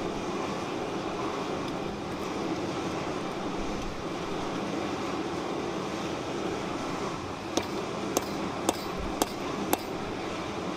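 Steady rushing background noise. Near the end, five light metallic taps about half a second apart, from a small steel hand tool striking the mokume gane disc on the anvil.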